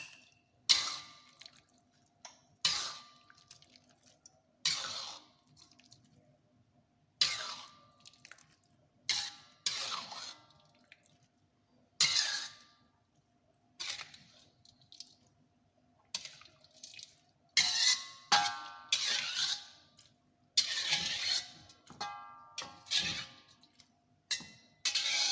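A cooking utensil knocking and scraping against a frying pan and a serving dish as stir-fried mushrooms are dished up. The sharp clinks with brief ringing come every second or two, closer together and more ringing in the last third.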